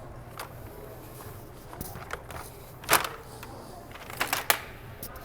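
Handling noise while shopping: scattered short knocks and clicks, the loudest about three seconds in and a quick run of three near the end, over a steady low hum.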